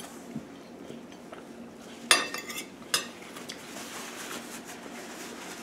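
Cutlery clinking against a dinner plate as food is cut and picked up: two sharp clinks about two seconds in, a little under a second apart, the first louder and ringing briefly, with light scraping between.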